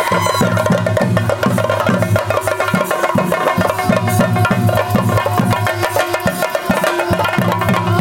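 Fast, dense drumming on chenda drums beaten with sticks: sharp strokes in a steady unbroken rhythm over a repeating low beat, the ritual percussion of a Theyyam performance.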